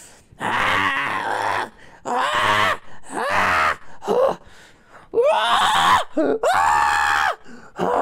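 A person's voice doing made-up female Neanderthal calls: a string of about seven short groans and cries, each a second or less, several bending up and down in pitch. A longer, steadier cry comes near the end.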